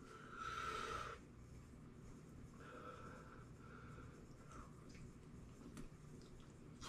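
Faint breathy sounds and small clicks from a man eating a hot chicken wing: a breath of about a second at the start, then quieter breaths and light handling clicks.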